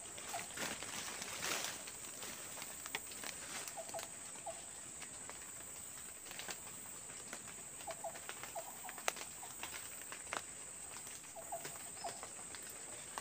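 Tropical rainforest ambience: a steady high insect drone, with a bird giving a short low double note about every four seconds. Scattered clicks and rustles come from a squirrel snare's cord being handled.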